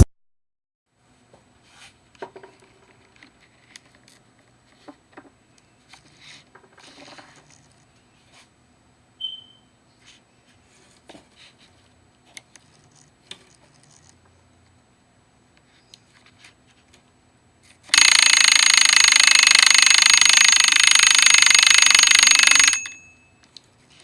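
Homemade door alarm going off: a small bell taken from a toy fishing rod, rattled by a 9-volt DC motor, gives a loud, continuous ringing for about five seconds near the end, then stops suddenly. Before it, only faint scattered clicks.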